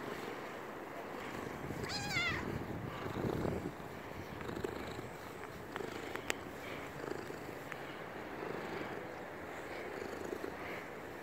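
Domestic cat purring steadily while being stroked, with one short wavering call about two seconds in.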